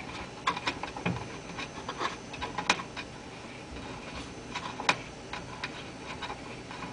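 Quiet, irregular clicks and ticks of a metal thumb screw being turned by hand, loosening it to free the hinged amplifier panel on the back of an Allen 301-C organ.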